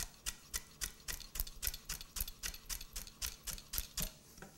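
Chef's knife chopping celery on a wooden board: a steady rhythm of sharp knife taps, about four a second, that stops shortly before the end.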